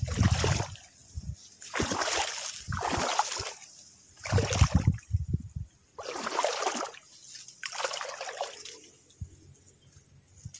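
Water sloshing and splashing around legs wading slowly through shallow muddy water, one slosh with each step about every one to two seconds.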